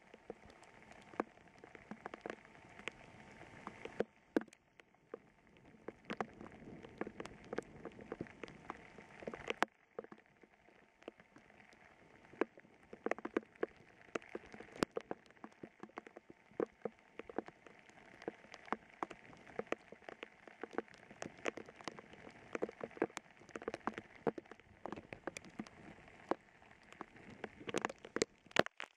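Heavy thunderstorm downpour: a steady hiss of rain with many sharp, irregular ticks of drops striking close by.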